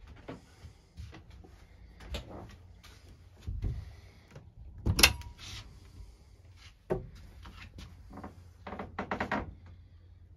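Knocks, bumps and clicks of someone moving through a small wood-fitted boat cabin and its doorway. The sharpest knock comes about five seconds in, and a quick run of knocks comes near the end.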